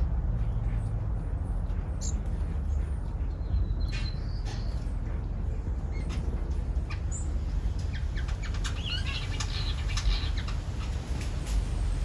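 Small aviary finches chirping: a short chirp about four seconds in and a quick run of chirps about nine seconds in, with scattered soft clicks, over a steady low rumble.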